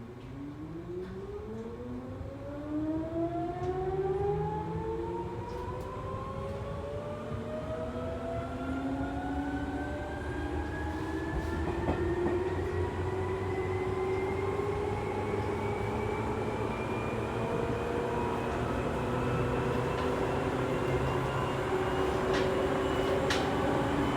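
Seibu 2000-series electric train with field-chopper control accelerating, heard from inside the motor car. The traction motor and gear whine rises steadily in pitch, climbing quickly at first and then levelling off as speed builds, over a steady rumble of wheels on rail.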